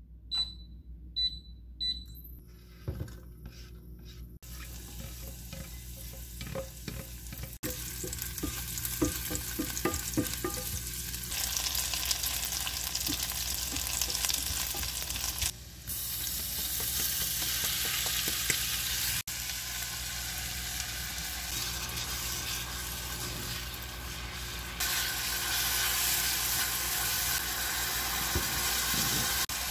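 Glass cooktop's touch controls beep three times, then chopped green onion and later kimchi fry in oil in a pan, sizzling steadily, while a silicone spatula scrapes and stirs them. The sizzle grows louder as the pan heats.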